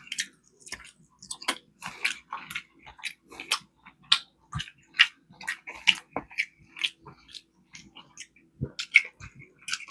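Close-miked chewing and biting: wet, smacking mouth sounds in many short, irregular clicks, several a second.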